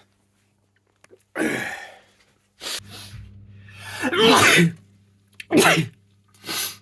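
A person sneezing repeatedly in a sneezing fit: four or five sneezes a second or so apart, some ending in a voiced 'achoo' that falls in pitch.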